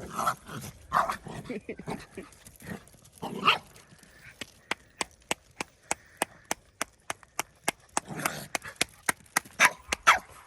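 Dogs barking and yipping in short bursts, with a steady run of sharp clicks, about three a second, through the middle stretch.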